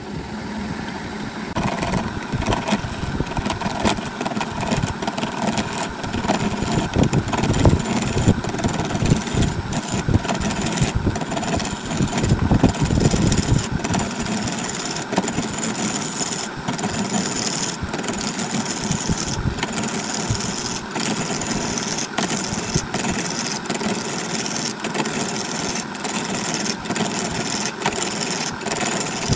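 Wood lathe starting up and spinning a glued-up segmented blank of red and yellow wood, with a turning tool cutting into it: a loud, continuous rough cutting noise over the motor's running, with frequent sharp knocks as the tool bites.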